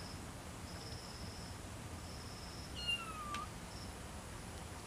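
A kitten gives a single short meow about three seconds in, falling slightly in pitch. An insect chirps in repeated high bursts in the background.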